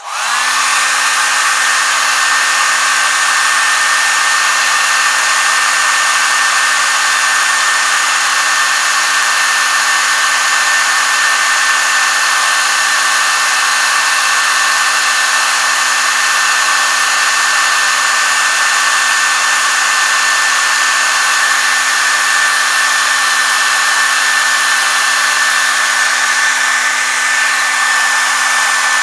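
Hair dryer switched on and blowing steadily, its motor coming up to speed within a moment to a steady whine over the rush of air. It is heating a leather repair to cure and harden the heat-cure filler compound.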